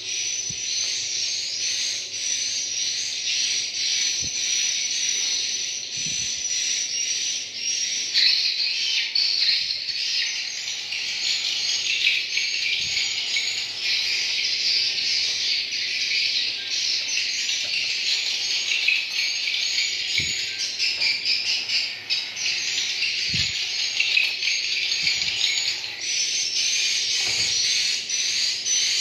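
Dense, unbroken twittering of many swiftlets chirping together, high-pitched and continuous.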